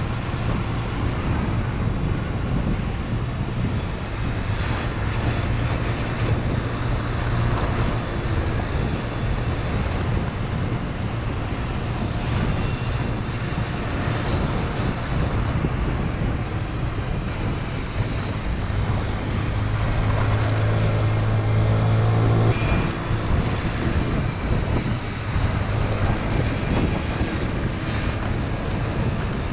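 Scooter engine running steadily under heavy wind buffeting on the microphone. The engine tone grows louder about twenty seconds in and drops back a couple of seconds later.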